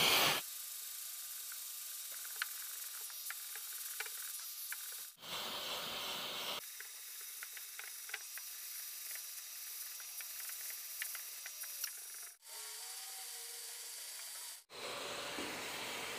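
Hand sanding of automotive primer with 320-grit paper on a dust-extracting sanding block: a steady scratchy rubbing hiss with the suction of the vacuum line under it. The sound breaks off and resumes abruptly several times.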